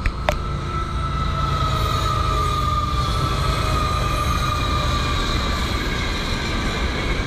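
Florida East Coast Railway freight train passing close by: a steady loud rumble and rattle of the freight cars on the rails, with a long thin wheel squeal that falls slowly in pitch. A brief sharp click just after the start.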